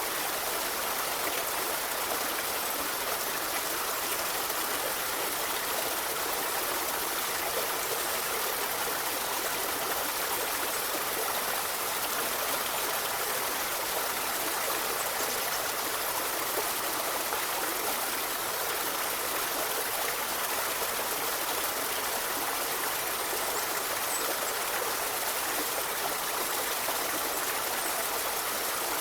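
Forest river flowing: a steady, even rush and babble of running water.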